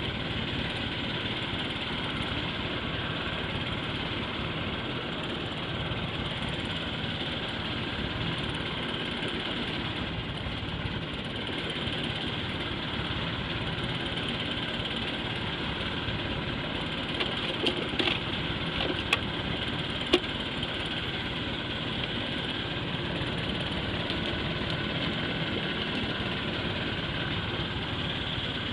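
Boat engine idling with a steady hum, and a few sharp knocks about two-thirds of the way through.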